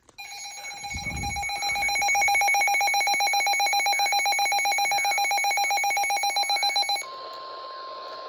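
Emergency Alert System two-tone attention signal, a loud, harsh steady tone with a fast warble, sounding for about seven seconds. It then switches to a quieter single steady tone, the 1050 Hz weather-radio warning alarm that announces a tornado warning.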